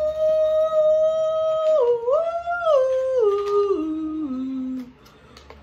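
A woman's voice humming a short wordless tune. A long high note is held for nearly two seconds, dips and rises again, then steps down in pitch note by note to a low note and stops about five seconds in.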